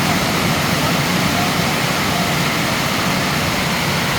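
Heavy storm rain and wind, a steady loud hiss.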